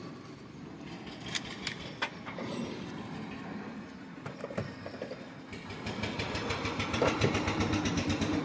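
A small engine running with a rapid, even beat, growing louder over the last three seconds. A few sharp clicks come about a second and two seconds in.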